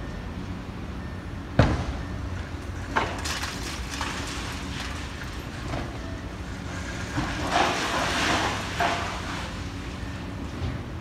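Wrecking ball striking a brick building under demolition: one sharp crash about one and a half seconds in, a lesser hit near three seconds, then a longer spell of crashing, falling rubble around seven to nine seconds. A steady low machine rumble runs underneath.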